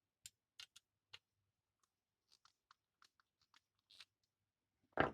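Faint plastic clicks and scrapes from handling the cover of a rewirable UK three-pin plug as it is put back on, with a louder knock near the end.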